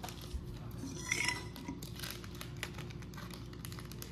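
Small clicks and clinks of kitchen items being handled on a countertop, with one brighter, briefly ringing clink about a second in.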